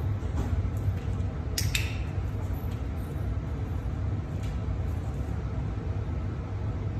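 A dog-training clicker clicked once, a sharp double click-clack about one and a half seconds in, marking the dog on its mat target. A fainter click follows a few seconds later, over a steady low hum.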